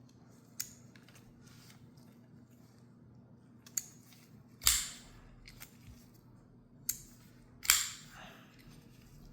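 McNees Mac 2 folding knife being worked open and closed, giving about five sharp metallic clicks and snaps. The loudest two come about halfway through and near the end, each a second after a lighter click.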